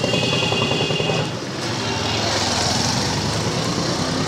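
Small motor vehicle's engine running steadily as it drives along a road, with a brief high ringing tone during the first second or so.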